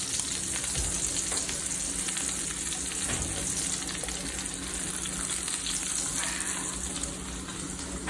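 Butter sizzling steadily in a hot cast iron skillet around a ribeye steak, a continuous hiss of frying.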